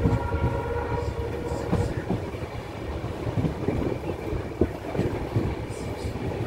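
Express train coaches rolling at low speed, heard from an open coach door: a steady rumble of wheels on rail with occasional knocks over rail joints, the sharpest about four and a half seconds in. Faint steady tones sound in the first couple of seconds.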